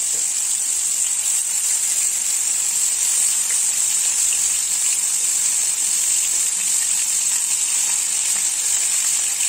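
Marinated boneless chicken tikka pieces sizzling steadily in hot oil in a flat pan, with a few faint crackles.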